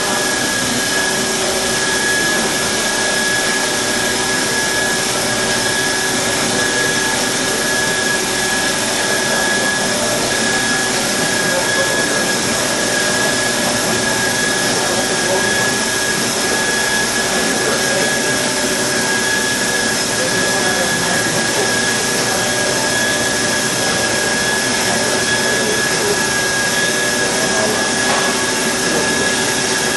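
Cosen metal-cutting bandsaw running under load partway through a cut through solid bar, a steady hum with a constant high whine that stays even throughout.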